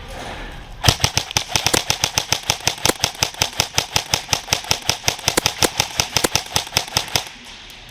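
Airsoft gun firing a long, fast string of shots, about six to eight a second, starting about a second in and stopping shortly before the end.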